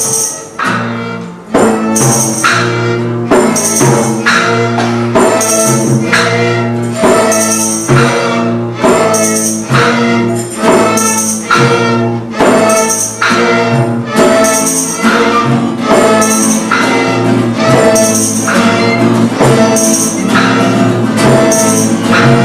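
Live school ensemble music: a tambourine struck on a steady beat over sustained chords from pitched instruments.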